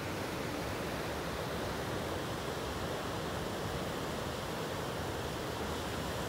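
River water rushing over a low rocky fall and rapids: a steady, unbroken rush.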